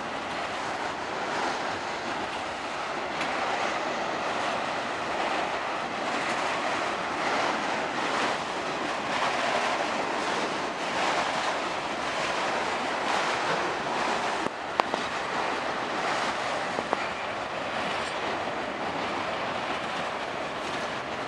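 Freight train of auto-rack cars rolling past, a steady rumble and clatter of steel wheels on rail. A few sharp clicks come about two-thirds of the way through.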